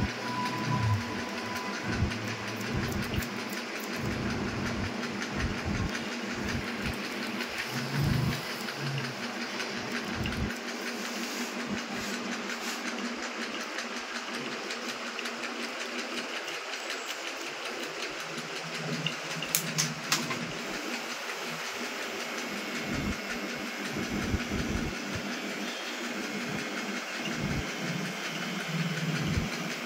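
Barber's scissors snipping rapidly over a comb during a haircut, a run of fine clicks, over a steady low hum.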